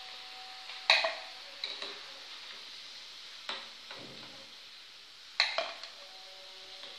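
Potato hearts sizzling in hot frying oil, a steady hiss, while a metal slotted spoon scoops them out and clinks against the pan, with sharp knocks about a second in and again about five seconds in.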